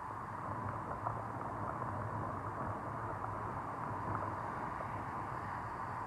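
Surf breaking and washing up on a sandy beach: a steady rushing noise with no lulls.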